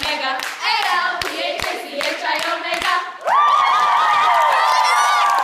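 A group of young women clapping along as they sing a chant. About three seconds in, the clapping gives way to a loud, held high-pitched group scream of excitement.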